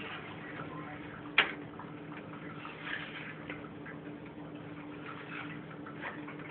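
Silicone spatula scraping and tapping a stainless steel skillet while stirring scrambled eggs, with scattered light ticks and one sharper knock about a second and a half in. A steady low hum runs underneath.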